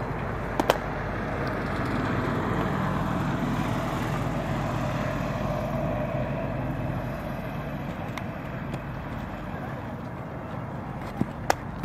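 Sharp pops of a baseball hitting leather gloves: one about a second in, another pair near the end as a pitch lands in the catcher's mitt, over steady outdoor background noise.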